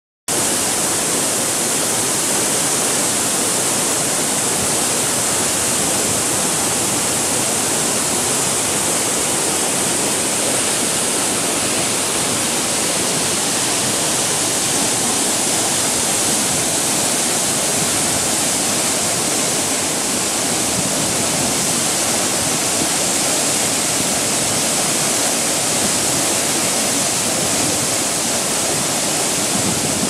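Steady, loud rush of the Minoo Falls waterfall, water pouring down a rock face and splashing into the pool below, even and unbroken throughout.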